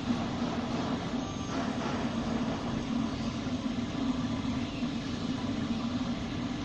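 MINGDA MD-4D dual-extruder FDM 3D printer running a print: a steady mechanical hum with an even hiss over it.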